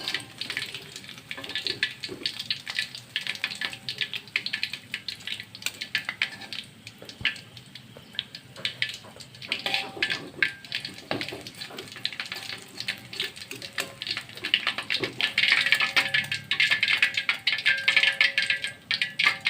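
Food frying in hot oil: a dense, continuous sizzle and crackle of popping oil that grows louder about fifteen seconds in. Soft background music plays underneath.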